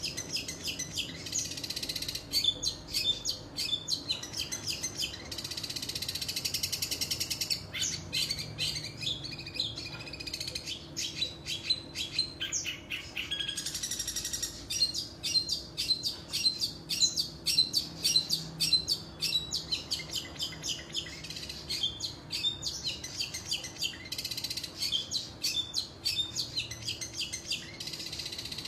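Long-tailed shrike (cendet) singing: a fast, unbroken string of sharp chirps and rapid repeated notes, with a few stretches of quick trilling.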